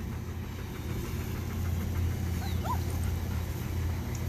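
Great Bernese puppies (Great Pyrenees × Bernese Mountain Dog) faintly whimpering, with one short squeak that rises and falls a little under three seconds in, over a steady low rumble.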